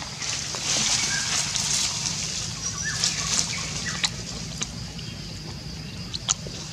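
Dry leaf litter rustling and crackling as a young macaque moves and forages on it, with a few sharp clicks later on. A steady high tone and a low rumble run underneath.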